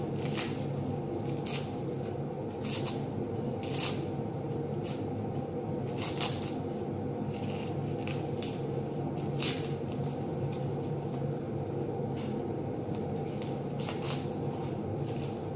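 Dry red onion skins crackling and rustling as they are peeled off with a knife and dropped onto a heap of peels, in irregular short papery crackles, over a steady low hum.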